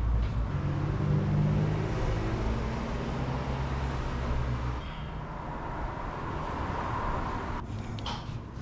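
Motor oil pouring from a plastic jug into a new spin-on oil filter to pre-fill it: a steady pour that cuts off abruptly near the end.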